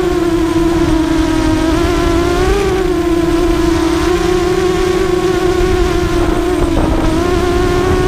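ZMR250 racing quadcopter's brushless motors and propellers whining steadily, the pitch rising briefly about two and a half seconds in and dipping for a moment near the end as the throttle changes.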